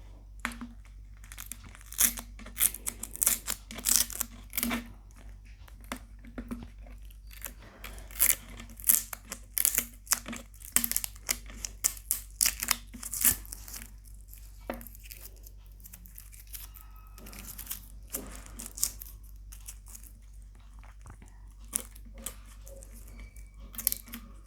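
Plastic label being torn and peeled off a soda bottle: irregular bursts of crinkling, tearing crackles with short pauses between them.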